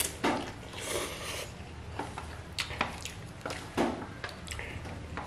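Eating sounds: a brief slurp of instant fried noodles about a second in, then chewing with several light clicks of wooden chopsticks against a stainless-steel tray.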